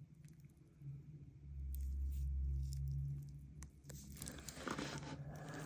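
Handling sounds: light clicks and rustling as ceramic brake pads are picked up and moved, over a low rumble of handling noise. The rustling grows denser and louder about four seconds in.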